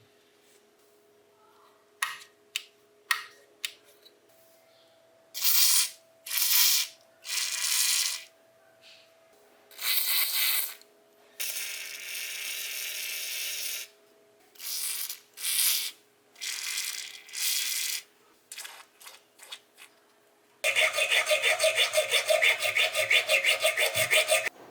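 Hand-tool work on the old rusted bench grinder: a series of separate rubbing and scraping strokes on metal, then near the end a fast, even run of clicks that stops suddenly.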